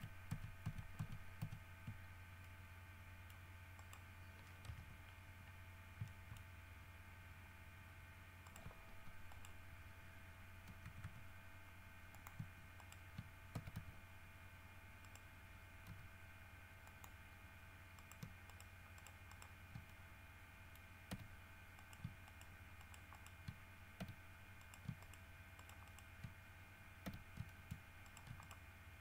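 Scattered clicks of a computer keyboard and mouse in use, bunched at the start and again in short runs later, over a faint steady electrical hum.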